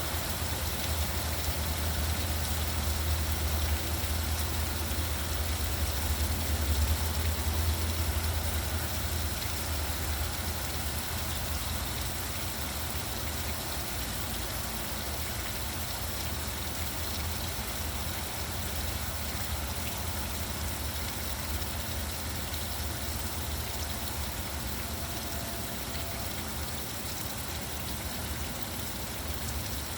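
Steady hiss of falling rain with a low rumble of road traffic underneath; the rumble swells about seven seconds in, as a vehicle goes by, then eases to a softer background drone.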